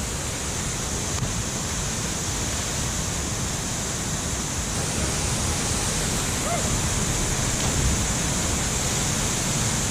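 Waterfall water pouring and splashing as a steady rush of noise, growing a little louder about halfway through.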